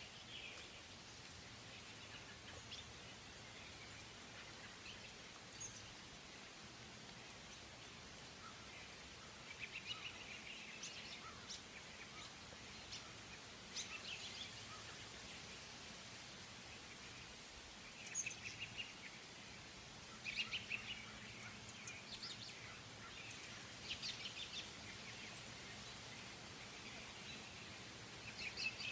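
Quiet outdoor ambience with a faint steady hiss, broken every few seconds by short bursts of high-pitched chirping calls.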